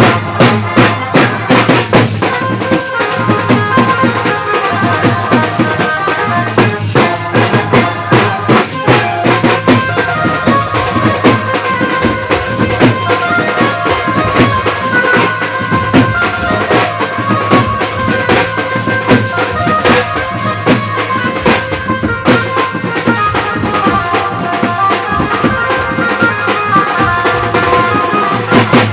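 Dance music with a steady drum beat under a busy melody.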